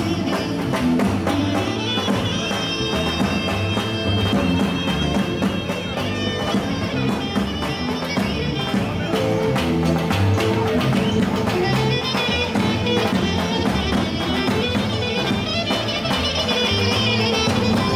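Live Balkan folk band playing an oro dance tune, a saxophone carrying a wavering melody over a steady drum beat.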